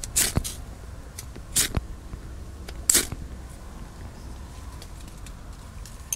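Ferro rod (firesteel) scraped with a striker over a Trangia spirit burner to light it: three sharp rasping strikes about a second and a half apart, the last the loudest, with a few faint ticks between them. These are repeated attempts to throw sparks into the methylated spirit.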